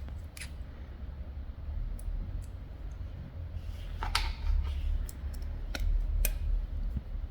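Light metal clicks and taps, about seven spread over several seconds with the sharpest about four seconds in, as the extractor is fitted back into a rifle bolt held in a bolt service station tool. A steady low hum lies under them.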